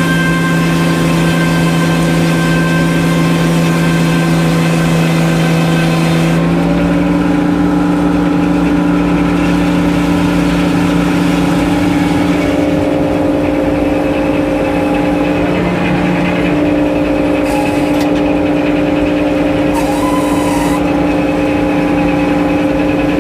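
Circular sawmill running: a steady engine drone with a hiss over it, the hiss stopping and the note dropping in pitch about six seconds in.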